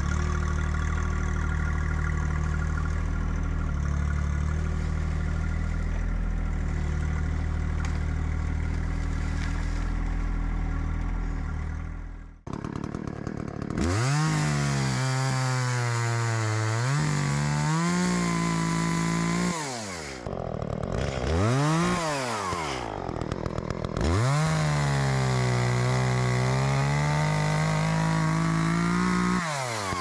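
An engine running steadily, then, after a sudden break, a chainsaw bucking a tulip poplar log into lengths: it revs up, labours in the cut with its revs sagging and recovering, and drops back to idle several times.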